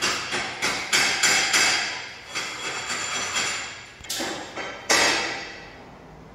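A hammer striking metal again and again, about three blows a second, each with a short ring. Near the end come two heavier strikes about a second apart, and their ringing dies away.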